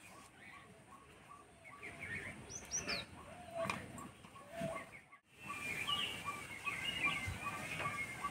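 Small birds chirping, one repeating a short chirp about twice a second with other calls over it. A few soft knocks come in the middle.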